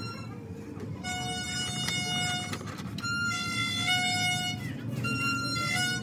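Instrumental music with long held notes in three phrases.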